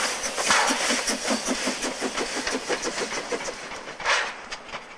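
Narrow-gauge Px48 steam locomotive moving slowly along the track, its exhaust chuffing in a quick, regular beat of about four a second. One louder chuff of steam comes about four seconds in.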